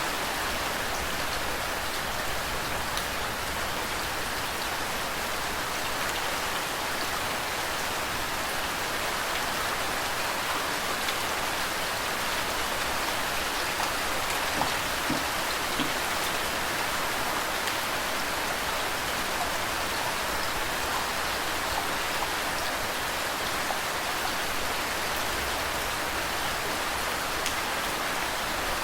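Steady rain: an even, constant hiss of rainfall with scattered drops ticking.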